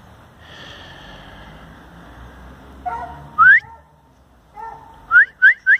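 A person whistling to call a dog: one longer upward-sliding whistle about halfway through, then three short rising whistles in quick succession near the end.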